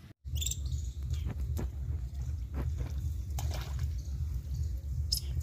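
Irrigation water running and trickling along a mud furrow, over a steady, evenly pulsing low drone, with a few faint clicks.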